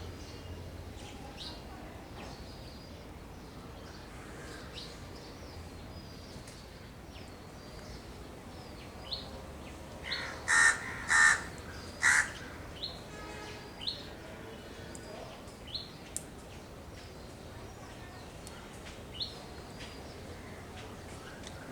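Small birds chirping, short thin chirps scattered throughout, with a run of three loud, harsh bird calls about ten seconds in.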